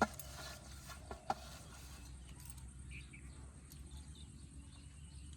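Two sharp clicks, one at the start and one just over a second in, then quiet rural outdoor ambience with a few faint bird chirps.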